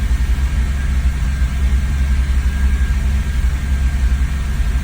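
BMW E46 330Ci's 3.0-litre inline-six running unevenly at steady revs with the throttle pressed, failing to pick up speed. It is the sign of a no-power fault that holds the engine under about 3,000 rpm, here with the MAF sensor unplugged.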